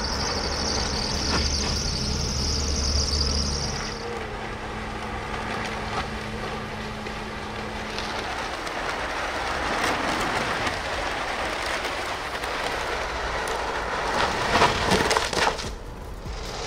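Vehicle noise on an open test track: a van running, with steady road and tyre noise. A low hum and a high hiss stop about four seconds in. The noise swells again around the middle and peaks sharply a few times near the end.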